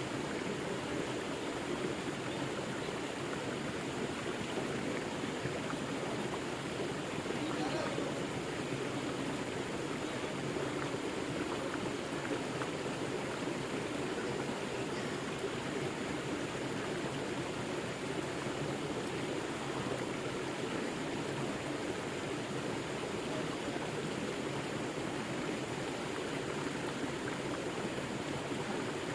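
River water flowing steadily, a constant even rush with no breaks.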